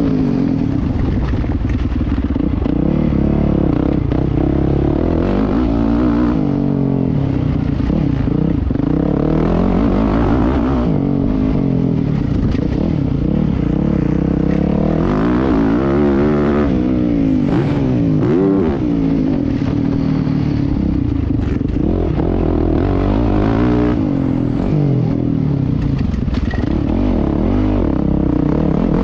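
Motocross bike engine revving up and dropping off again and again as the rider works the throttle and gears around the track, heard from the rider's helmet.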